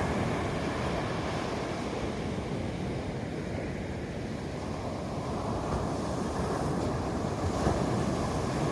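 Steady rushing outdoor noise, swelling slightly near the end.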